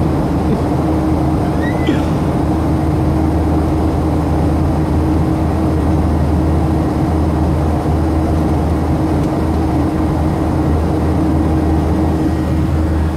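Steady cabin noise of an airliner climbing out after takeoff: jet engine and airflow drone heard from inside the cabin, with a constant low hum.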